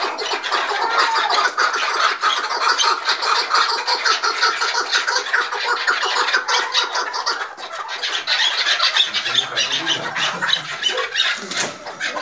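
Several chukar partridges calling at once in a fast, continuous chatter of clucks and squawks, the agitated calling of birds squabbling with one another.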